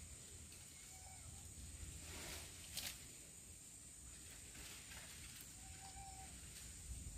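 Faint outdoor ambience: a steady high hiss throughout, a short crackle about two to three seconds in, and two faint brief whistle-like notes, one about a second in and one near six seconds.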